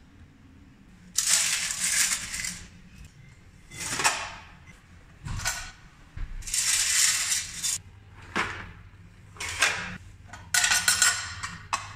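Ruble coins jingling and clattering against steel coin trays of mechanical candy vending machines as they are scooped out, in about seven bursts. The longest run about a second and a half each, near the start, in the middle and near the end.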